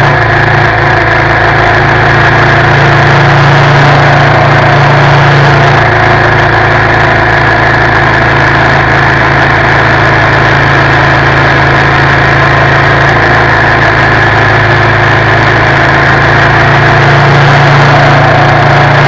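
2019 Suzuki V-Strom 650's 645 cc V-twin engine running steadily at a constant cruising speed, heard close up from a camera on the front crash bars.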